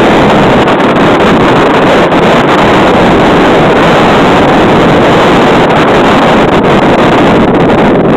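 Wind buffeting the camera's microphone: a loud, steady rush of noise that never lets up.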